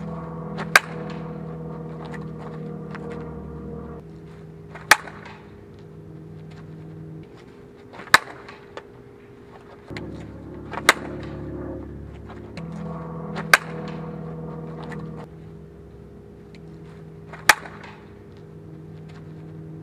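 Softball bat striking pitched balls: six sharp, loud cracks, one every three to four seconds.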